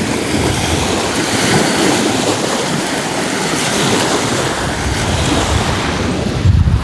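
Small waves washing onto a lagoon's sandy shore, with wind blowing on the microphone.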